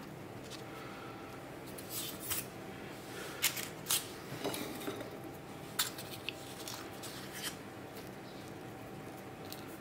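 Paper muffin cases crinkling and small clicks as rhubarb pieces are pressed onto the batter by hand, in a few short clusters, over a faint steady hum.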